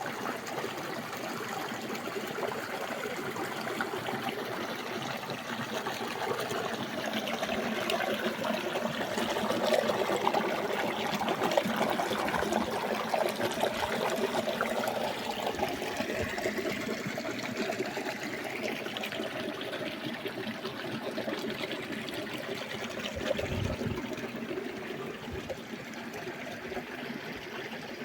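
Running water: a steady trickling, splashing flow, swelling slightly partway through.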